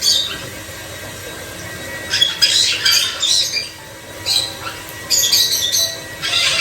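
White-bellied caique giving a series of short, harsh squawks in several clusters, the loudest from about two to three and a half seconds in.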